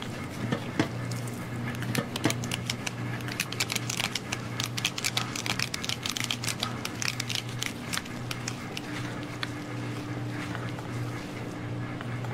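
Knife cutting and scraping through raw salmon flesh and skin on a wooden board: a run of crackly clicks and scrapes, densest in the middle, over a steady low hum.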